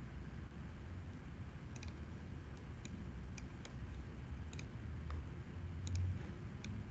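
Faint, irregular clicks of a computer mouse, about a dozen, some in quick pairs, over a low steady background hum.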